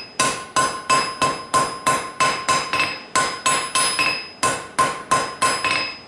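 Blacksmith's hammer striking hot steel on an anvil in a steady rhythm, about three blows a second, each blow leaving a short metallic ring: drawing out a long tapered scarf for a forge weld.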